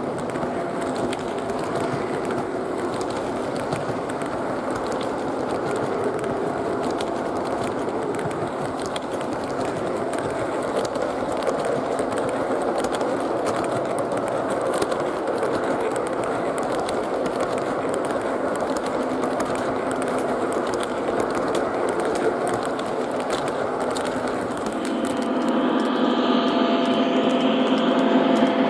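O gauge model freight train of 60 ft box cars rolling along three-rail track: a steady rumble and clatter of wheels on the rails. About 25 seconds in, the Conrail diesel model locomotive comes by and a steady hum from it rises over the clatter.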